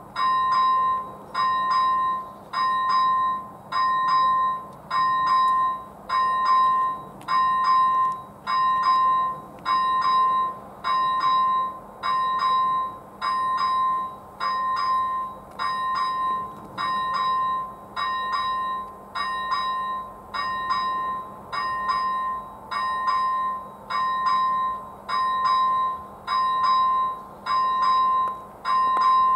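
Electronic level-crossing bell (ZV-01 type) on the warning post, sounding a ringing tone about once a second. This is the crossing's warning: a train is approaching and the crossing is closed.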